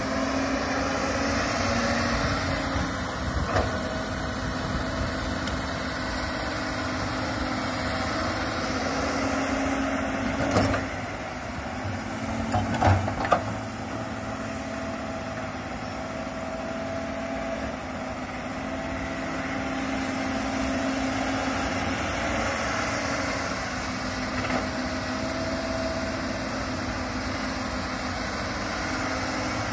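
Komatsu tracked excavator's diesel engine running steadily as the machine digs and swings, its pitch shifting a little with the load. A few short knocks are heard around the middle.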